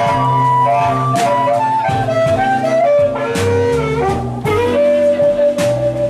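Live blues band: a harmonica cupped against a handheld microphone plays a solo, bending and stepping between notes and settling on a long held note near the end, over electric guitar, upright double bass and drums.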